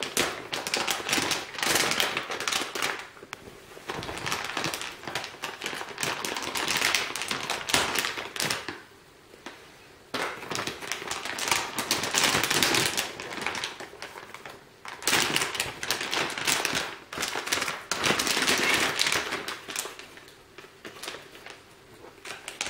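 Metallised anti-static shielding bag crinkling and crackling as it is unfolded and pulled off a graphics card, in several bouts with brief pauses.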